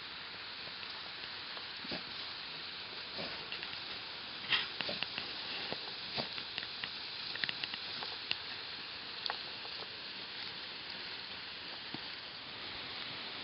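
Dogs digging, their paws scratching dirt and rustling dry leaves: scattered scratches and crackles, busiest from about four to nine seconds in, over a steady hiss.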